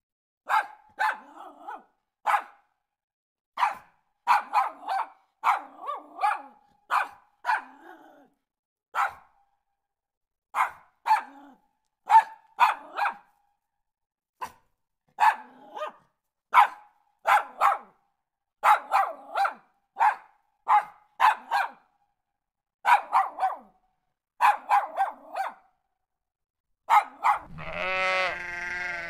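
Small dog barking over and over in short, sharp yaps, mostly in quick runs of two to four with brief pauses between. Near the end sheep start bleating.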